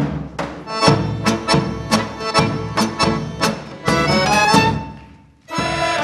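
Serbian folk ensemble playing a dance tune: evenly spaced beats of a tapan, a large double-headed drum, under accordions and violins. The tune ends in a rising run about five seconds in and stops briefly. Near the end the men's voices come in on a held chord, with the drum beating on.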